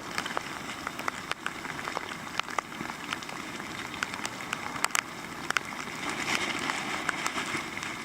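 Pouring rain falling steadily, with many sharp, irregular drop hits heard as clicks.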